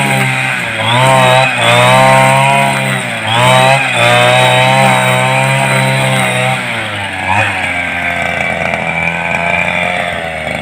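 Backpack brush cutter's small petrol engine running at high revs while cutting grass, its pitch dipping and recovering several times in the first few seconds as the line bites into the grass. It then runs steadier and grows slowly fainter near the end.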